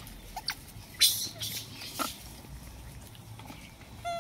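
Rhesus macaques' short squeaks and scuffling, with a brief loud crackle about a second in and a short high squeak near the end.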